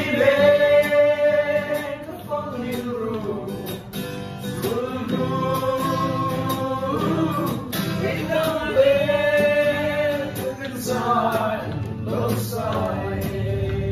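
Several voices singing a song together, a man's voice on a microphone leading, with an acoustic guitar played along; the melody moves in long held notes.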